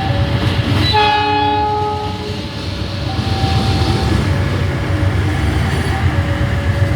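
Train horn sounding one multi-tone blast about a second in, lasting about a second, over the steady low rumble of a train running past.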